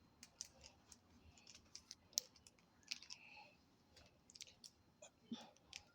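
Faint, irregular clicks and light rustles of a wig being handled and pulled onto the head.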